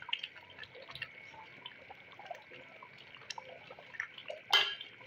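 A spoon stirring thick, wet chicken korma gravy in a large metal pot: soft squelching and dripping sounds over a faint steady hiss, with one sharp knock about four and a half seconds in.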